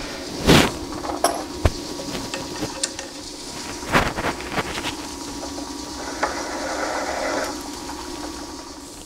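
Metal lathe running steadily while a twist drill in the tailstock chuck is fed into the spinning steel part, drilling a half-inch hole, with a few sharp knocks and a stretch of cutting hiss late on.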